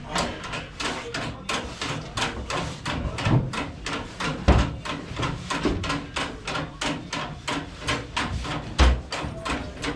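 Small fishing boat's engine chugging with a steady, regular knocking beat of about four strokes a second, with a couple of heavier thuds mixed in.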